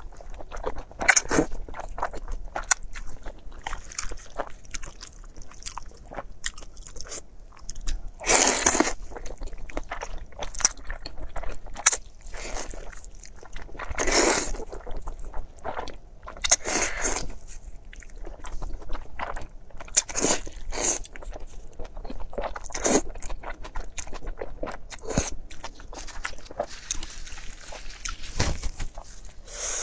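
A person eating spicy wide flat noodles close to the microphone: wet chewing and smacking throughout, with a louder slurp every few seconds as a mouthful of noodles is sucked in.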